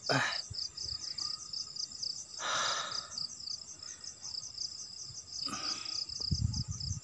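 Crickets chirping in a steady, fast pulsing trill, about five pulses a second, with a few short soft rustles at about two and a half seconds, five and a half seconds and six and a half seconds.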